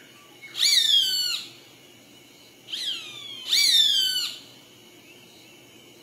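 Roadside hawk calling: three high, whining screams, each rising sharply and then sliding down in pitch. The second is shorter, and the last two come close together.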